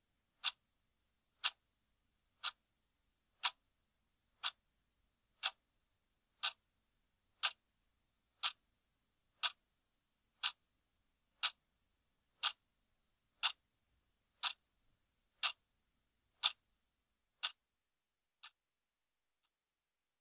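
Ticking-clock sound effect: sharp, evenly spaced ticks, one a second, each a little louder than the last, stopping about 18 seconds in with a final fainter tick.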